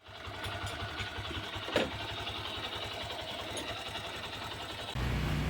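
Honda SP 125's single-cylinder four-stroke engine idling with a steady low putter, running again after its no-start fault was repaired. There is one brief sharp sound about two seconds in, and the rumble gets louder near the end.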